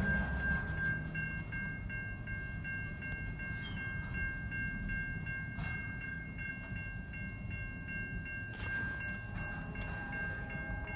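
Double-stack container freight train rolling steadily through a level crossing, heard from inside a car: a continuous low rumble of the well cars with a couple of clanks, about a second in and near the end, over a steady high ringing tone.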